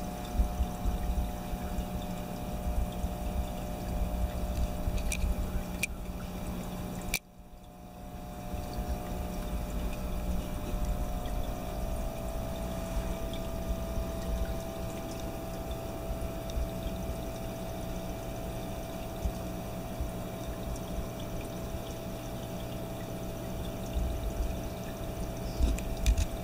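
Bubbling and trickling water from an aquarium's air-driven sponge filter, its lift tube breaking bubbles at the surface, over a steady low hum. The sound drops out suddenly about seven seconds in and comes back up gradually.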